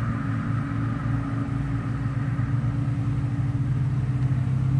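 Honeybee colony in an opened hive buzzing: a steady, even hum.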